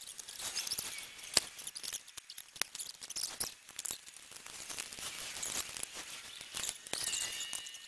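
Scattered clicks, taps and scrapes of a plastic HID halo headlight housing being handled and fitted against the pickup's bare metal radiator support, with a few sharper knocks along the way.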